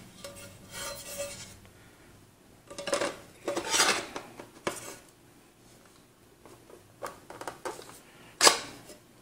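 An optical drive and its external enclosure being handled: the metal and plastic parts rub and scrape against each other in stretches, loudest a few seconds in. A single sharp knock comes near the end.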